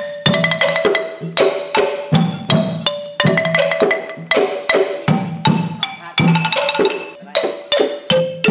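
Pong lang, the Thai wooden log xylophone, played in a quick melody of sharp struck notes, about three a second, each fading fast.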